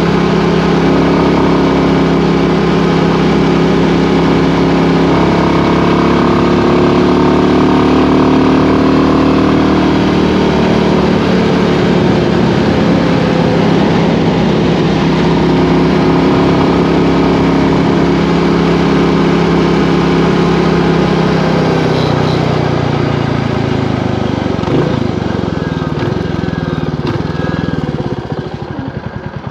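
Royal Enfield Classic 350's single-cylinder engine running under way, heard through a helmet mic over a steady haze of wind. About two-thirds through, the engine note falls as the bike slows, and near the end it drops back to a quieter, slow, regular thump.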